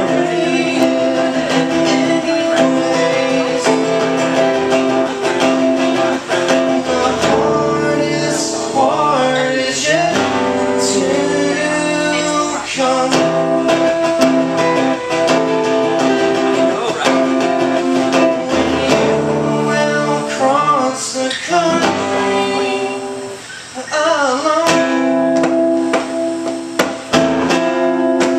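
Live acoustic duo: two acoustic guitars strummed together, with a man singing over them.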